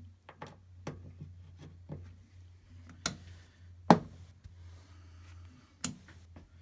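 Scattered clicks and knocks of a valve and the selector switches being handled at a Centrad 751 valve tester as the next valve is set up, the loudest a sharp click about four seconds in, over a steady low hum.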